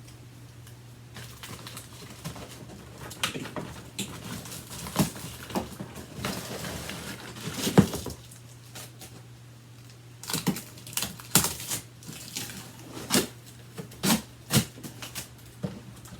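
A cardboard shipping box and its packing being opened and pulled apart by hand: irregular rustling, crackling and knocks, the loudest a sharp knock about eight seconds in, over a steady low hum.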